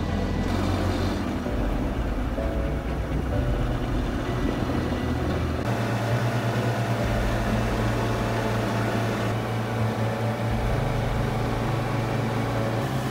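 Boat engine running steadily at cruising speed, a constant low drone under the rush of water and wind. The tone shifts slightly twice where the recording is cut.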